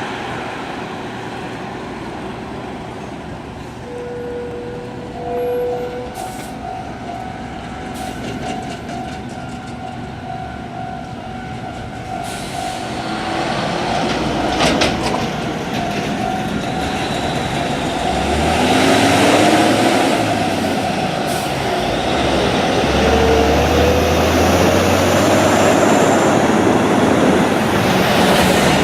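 A heavy double-trailer haul truck passes over the crossing. Its engine and tyres build to a loud low rumble in the second half, with the engine note gliding as it goes by. A steady ringing tone runs through the middle, before the truck is loudest.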